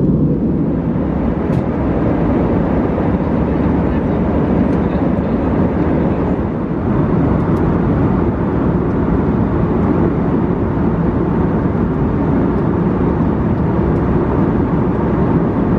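Steady cabin noise of an Airbus A320 airliner in cruise: the even rush of its engines and the airflow over the fuselage.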